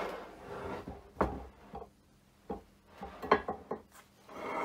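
Heavy machined cast-iron milling-machine parts being handled on a workbench: scraping and sliding metal on metal and wood, with several sharp knocks and clicks, a cluster of them past the three-second mark.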